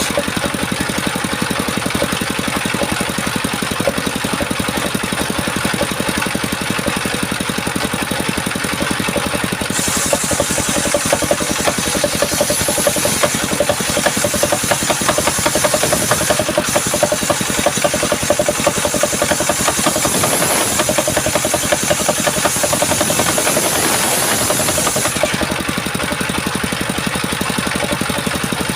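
Engine-driven circular sawmill running steadily. A higher hiss joins for about fifteen seconds in the middle, as the blade cuts through coconut wood.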